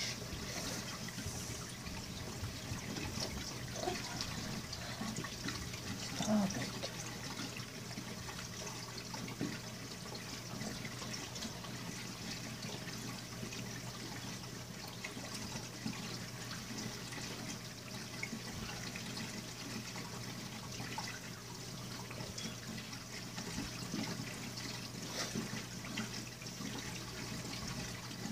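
Reef aquarium water circulating: a steady trickling, splashing wash of water with a low steady hum beneath. There is a brief louder sound about six seconds in.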